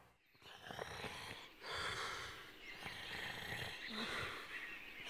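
A cartoon bear snoring in slow breaths that swell and fall every second or two, over a steady background of outdoor ambience.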